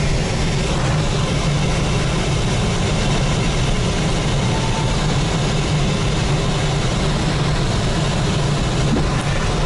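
Steady loud rushing noise with a low rumble inside a glider's cockpit, unbroken and unchanging.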